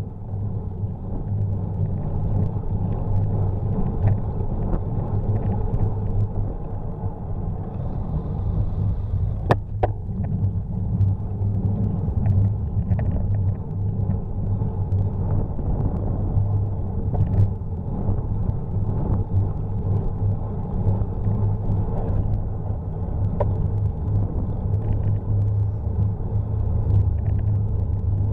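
Steady low rumble of wind and road vibration on a forward-facing bicycle camera's microphone during a ride, with one sharp click about nine and a half seconds in.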